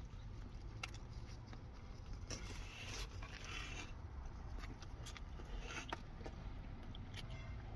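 A man biting into and chewing a buffalo-sauced chicken burger: faint chewing with scattered soft clicks and brief rustling mouth sounds.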